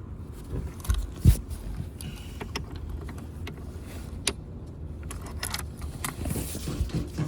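Clicks, knocks and light rattling of a replacement seat belt buckle being handled and set in place on the seat frame, with the loudest knock just over a second in.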